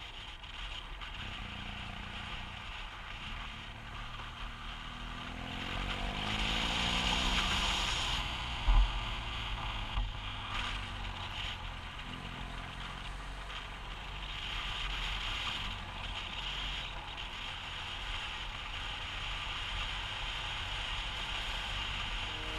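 Motorcycle engine running under way, mixed with wind noise on the camera, its revs rising and falling with throttle and gear changes, with a couple of short knocks about nine and ten seconds in.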